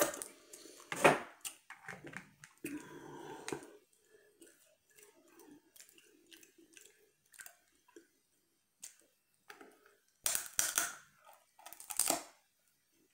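Close-up eating sounds from a seafood boil: chewing, crunching and wet smacking, with crab shell being cracked between the teeth. Loud crunches come about a second in, about ten seconds in and again near the end, with quieter clicks in between.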